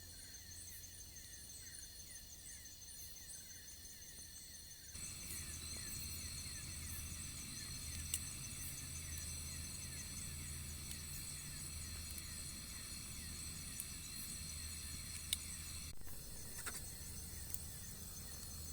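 A chorus of night insects, crickets among them, chirping and trilling in a steady high-pitched drone, with a few sharp clicks. The chorus gets louder and fuller about five seconds in.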